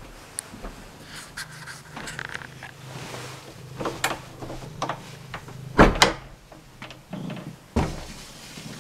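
A wooden door being handled and opened: a run of knocks and clacks, the loudest a double knock about six seconds in and another near eight seconds.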